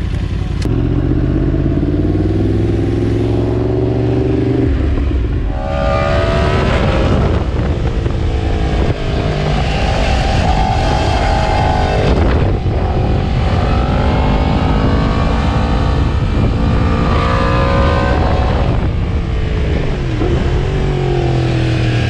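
Yamaha MT-10 SP's 998 cc crossplane inline-four pulling away at low, slowly rising revs, then accelerating hard through the gears, its pitch climbing and dropping back at each gear change. The revs fall away near the end. Wind rushes over the microphone throughout.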